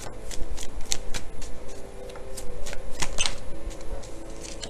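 Tarot cards being shuffled by hand: a string of quick papery clicks and riffles, busiest about three seconds in.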